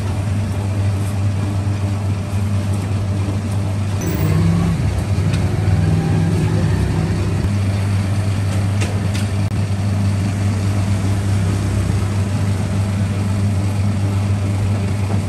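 Industrial dough mixer's electric motor running steadily with a deep, even hum as its hook kneads a bowl of dough.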